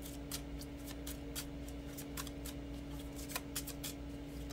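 A deck of oracle cards being shuffled by hand: irregular light clicks and snaps of cards, several a second, over a steady low hum.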